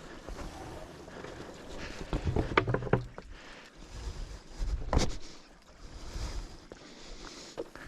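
Footsteps and rustling on a muddy, overgrown forest trail, with a cluster of irregular knocks and squelchy thuds about two to three seconds in and a single heavier thud about five seconds in.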